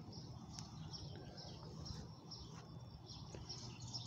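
Faint bird chirps, short and scattered, over a low steady outdoor background rumble.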